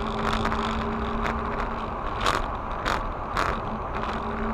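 Car driving at speed, heard from inside the cabin through a dashcam: steady road and engine noise with a low even hum, and a few sharp clicks about halfway through.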